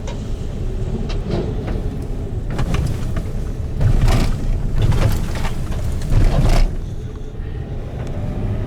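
Car driving on a highway, steady road and engine noise heard from inside the car, with a few louder short rushes about four to six and a half seconds in.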